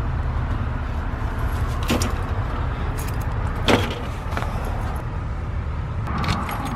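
Car engine idling, a steady low rumble, with two sharp clicks: one about two seconds in and a louder one a little later.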